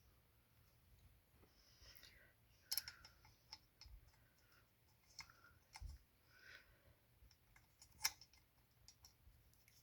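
Faint, sparse metal clicks and light rustling from an Allen wrench and screws being handled and turned on a desk frame, the two sharpest clicks about three seconds and eight seconds in.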